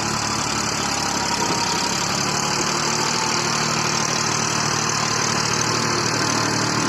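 Mahindra 575 DI tractor's four-cylinder diesel engine running steadily.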